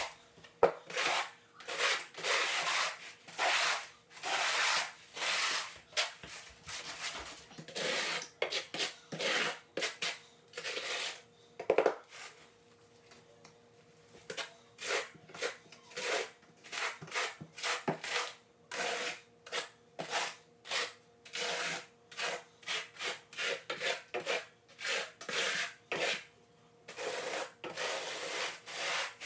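Quarter-inch notched steel trowel scraping thinset mortar across the floor in quick repeated strokes, with a couple of sharp knocks and a short pause about twelve seconds in.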